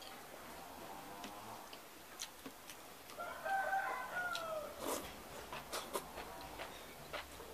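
Soft chewing and lip-smacking clicks from someone eating by hand. About three seconds in, a drawn-out bird call, the loudest sound, holds for nearly two seconds and falls slightly in pitch at the end.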